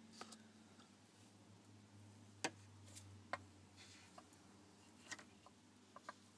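Near silence over a faint low hum, broken by a scattering of small sharp clicks and taps, the loudest about two and a half seconds in.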